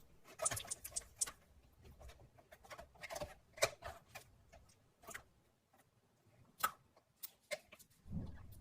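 Irregular sharp clicks and crackles, a few each second, some coming in quick little clusters.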